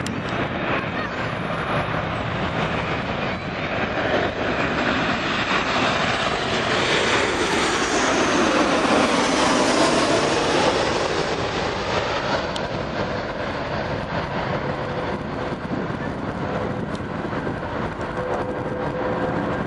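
Jet airliner passing overhead, its engine noise building to a peak about halfway through and then fading away.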